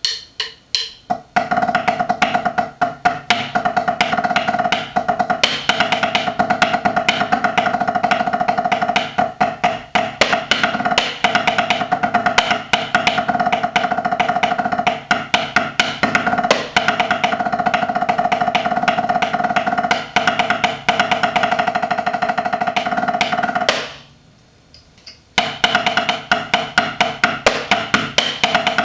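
Drumsticks played on a drum practice pad in a fast snare-drum rudimental exercise of rapid strokes and accents. It opens with a few separate strokes, runs densely, breaks off for about a second and a half near the end with a couple of taps, then picks up again.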